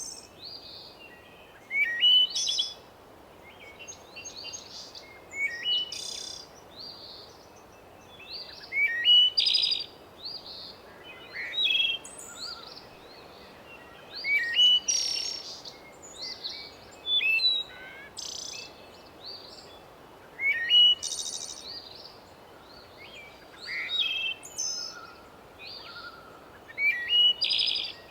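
Outdoor ambience of songbirds chirping, short phrases repeating every two to three seconds, over a steady breeze hiss.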